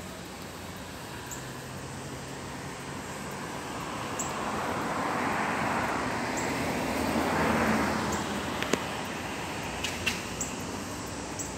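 A vehicle passing on a nearby road: a broad rush of noise that swells, peaks about two-thirds of the way through and fades away. Short, sharp high chip notes from a northern cardinal repeat every second or two, and there is one brief handling knock at the very start.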